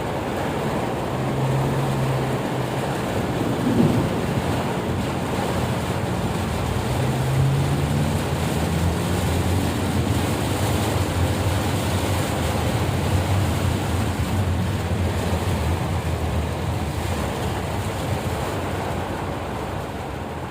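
Steady rushing noise of heavy rain, with an engine running low underneath, its pitch shifting a little. A single knock about four seconds in.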